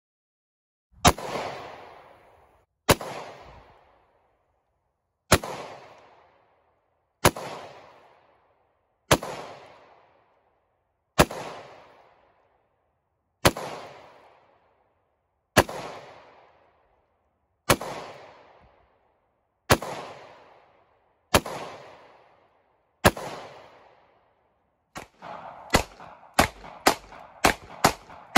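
Gunshots. About a dozen single shots come roughly every two seconds, each followed by an echo that dies away. Near the end there is a quicker string of shots, about three a second.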